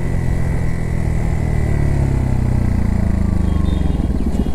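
Bajaj Pulsar NS160's single-cylinder engine running under the rider on the move, its note falling slowly over the first few seconds.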